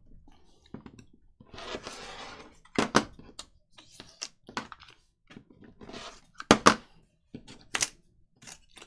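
Paper being cut and handled on a craft table: a short scraping stroke, then several sharp knocks and clicks with quiet gaps between.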